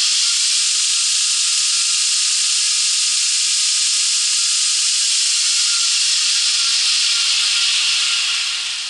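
2x27-inch belt grinder's abrasive belt running free at high speed: a loud, steady hiss with a faint whine, easing slightly near the end.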